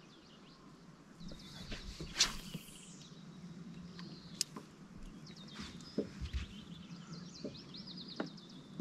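Small birds singing several quick, high trills, over a faint steady low hum, with a couple of sharp clicks about two and four and a half seconds in.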